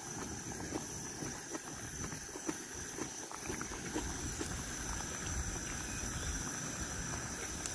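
A portable gas camping stove running under a pot of simmering broth: a steady low rumble with scattered small pops and ticks.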